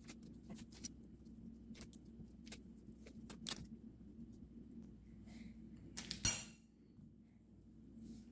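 Quiet kitchen handling: scattered faint taps and clicks as slices of butter are set on a raw whole chicken in a glass baking dish, with one louder knock about six seconds in. A low steady hum runs underneath.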